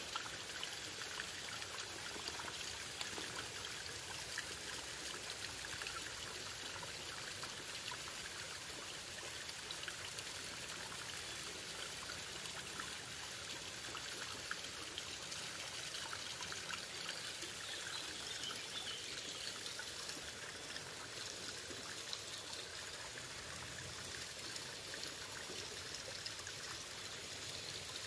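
Shallow rocky stream trickling and running steadily.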